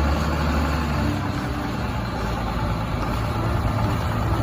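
A motor vehicle engine idling: a steady low rumble with a hiss of noise over it.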